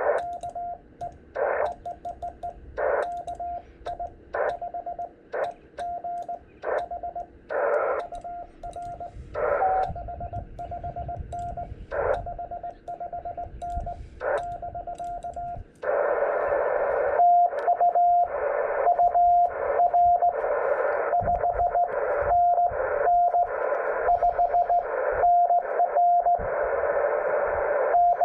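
Morse code (CW) from a ham radio transceiver: a single pitched tone keyed on and off in dots and dashes. About halfway through, steady band hiss comes up underneath the keyed tone.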